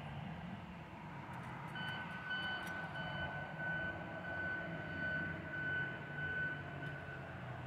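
An engine running steadily in the distance, with a high steady whine coming in about two seconds in and a fainter higher tone pulsing on and off above it.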